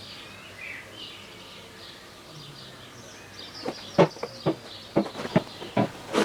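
Birds chirping faintly, then a run of sharp knocks and clatters starting about halfway through, the loudest about two-thirds of the way in.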